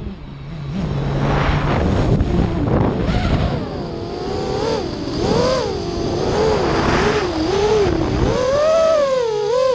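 FPV quadcopter motors heard from the onboard camera, a whine that keeps rising and falling in pitch as the throttle is worked. The first few seconds are mostly a rushing noise, and the wavering whine stands out from about four seconds in.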